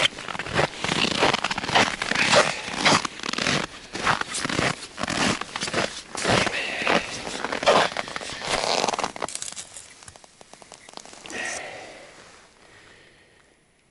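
Footsteps crunching in hard-frozen snow, in a quick uneven series that dies away about ten seconds in as the walker stops.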